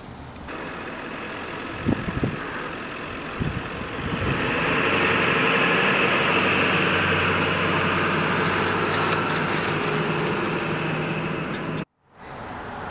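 A heavy engine running steadily, with a few knocks early; it grows louder about four seconds in and cuts off suddenly near the end.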